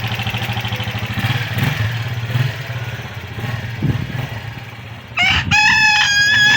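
Keeway RKV 200 motorcycle engine idling with a steady rapid pulse, growing fainter after about two seconds. Near the end a rooster crows loudly: one short note, then a long held one.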